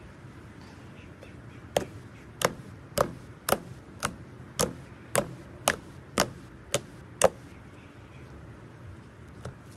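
Fingers poking into glossy slime, making a run of about eleven sharp pops, roughly two a second, then one fainter pop near the end.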